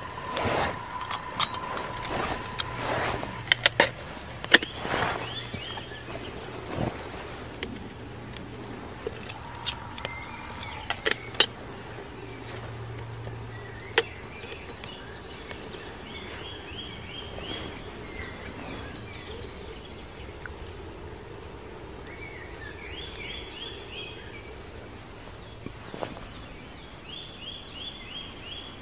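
Sharp clicks and knocks of camp gear being handled, with a wood fire burning in a small metal camp stove, over the first dozen seconds. Then songbirds sing short repeated trills over quiet forest ambience.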